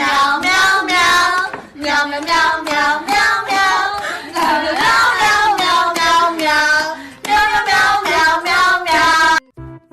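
High-pitched singing voice in short repeated phrases with a steady rhythm; it cuts off suddenly near the end, leaving quieter music.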